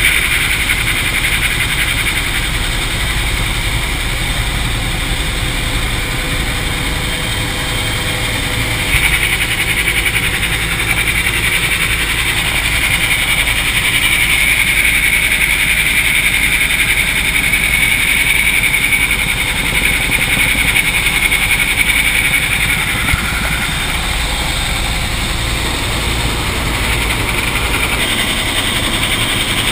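Helicopter engine and rotor heard from inside the cockpit in flight: a loud, steady drone with a high whine that grows stronger for a stretch in the middle.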